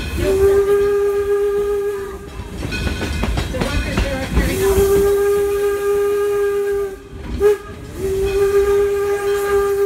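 Steam whistle of the Detroit & Lima Northern No. 7 steam locomotive blowing one steady note in a long, long, short, long pattern, the standard grade-crossing signal. The rumble of the moving train runs underneath.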